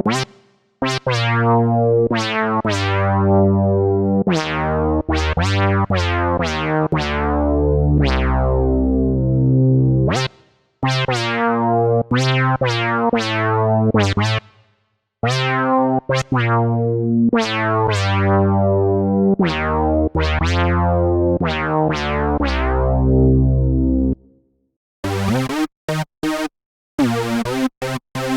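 Arturia JUN-6V software synthesizer, an emulation of the Roland Juno-60, playing a polyphonic plucked patch: bright chords that quickly fade over long sustained bass notes. The notes stop about 24 seconds in, and short chopped stabs follow near the end.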